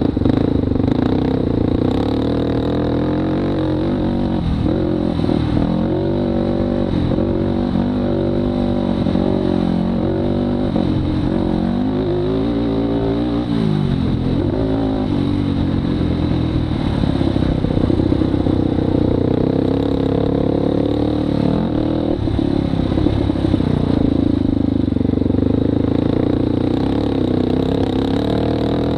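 Polaris Predator 500 sport quad's single-cylinder four-stroke engine under way. Its pitch climbs and drops again and again with throttle and gear changes for the first half or so, then holds a steadier note.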